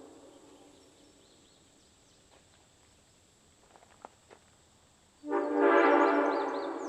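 Railroad locomotive air horn blown on compressed air. The chord of a blast dies away in the first second, a few seconds of near silence with a few faint clicks follow, then a new blast of the same multi-note chord starts abruptly about five seconds in.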